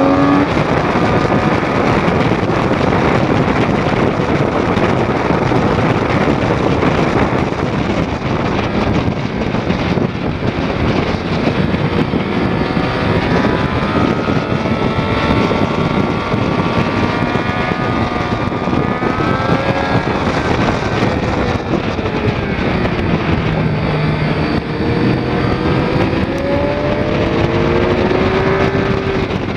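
2006 Triumph Daytona 675's inline three-cylinder engine running hard at track speed, heard from on board under heavy wind rush over the microphone. Its pitch drops off about two-thirds of the way through, then climbs again as the bike accelerates.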